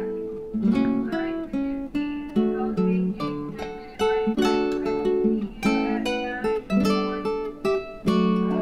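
Background music: acoustic guitar playing a run of plucked notes and chords.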